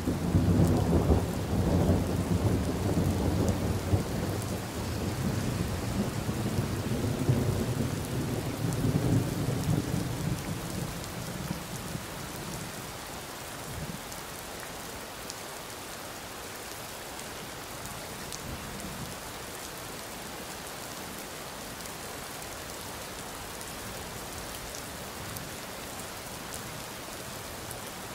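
A long roll of thunder starts at once, rumbling low and loud for about ten seconds and dying away by about twelve seconds in. Steady rain falls throughout and is left alone for the rest.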